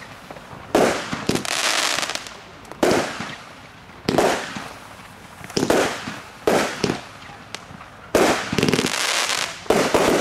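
A 25-shot consumer firework battery (cake) firing: about eight to ten shots, irregularly spaced roughly a second apart, each a sharp bang trailed by about a second of noisy sizzle as the shell bursts.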